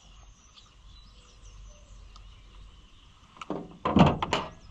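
Quiet outdoor background, then about three and a half seconds in a short burst of scraping and knocking handling noises, the loudest a thud about four seconds in.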